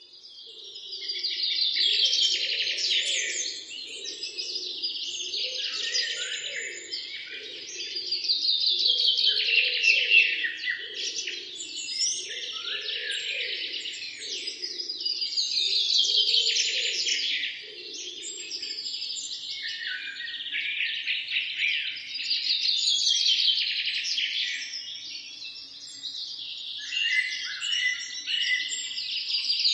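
Morning chorus of several songbirds singing and chirping, with loud song phrases swelling again every six or seven seconds. A softer, lower pulsing sound runs beneath and stops about eighteen seconds in.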